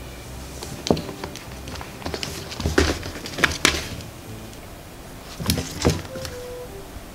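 Knocks and scuffs as a cat moves about under a wooden table and paws at a table leg: a single knock, then a quick cluster of them, then two more near the end.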